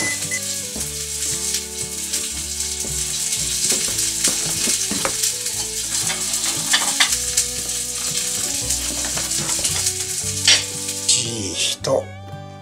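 A steady, sizzle-like hiss with scattered clicks, over background music. The hiss cuts off suddenly near the end, leaving only the music.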